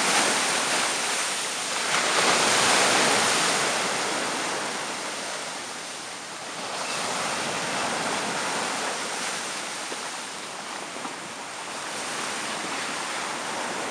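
Surf thick with slush and chunks of sea ice washing in over the beach and draining back out. The wash comes in swells a few seconds apart, loudest in the first few seconds, then rising again more softly twice.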